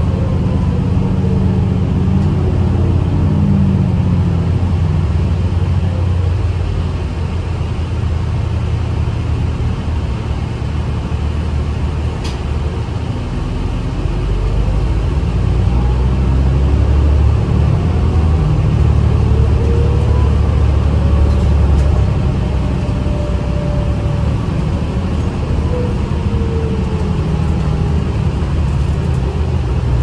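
Inside a 2010 New Flyer DE40LFA hybrid bus under way: the Cummins ISL diesel engine and Allison EP40 hybrid drive run with a deep steady drone, while whines glide up and down in pitch as the bus speeds up and slows. The sound grows louder a little past the middle, then eases.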